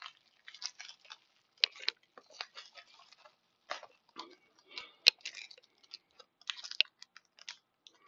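Bubble wrap being handled and unwrapped: irregular crinkling and crackling of plastic, with a sharp click about five seconds in.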